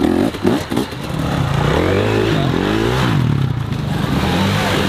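Enduro dirt bike engine revving in short, choppy throttle blips as it works over rocks, then rising and falling in pitch and settling into a steadier note.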